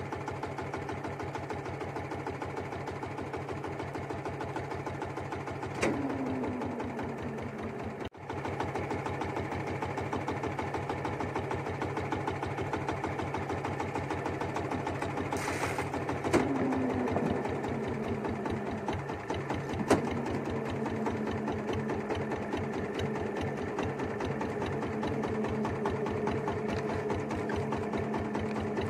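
Small boat's engine running steadily with a fast, even chatter. Twice, about six and sixteen seconds in, a sharp knock is followed by a short falling tone. Some twenty seconds in, after another knock, the running settles into a steadier hum.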